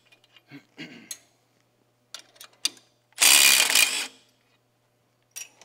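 Milwaukee Fuel cordless ratchet running in one burst of about a second, about three seconds in, spinning out a 5/16 bolt while a wrench holds the lock nut. Light metal clicks and clinks from the wrench and bolt come before and after.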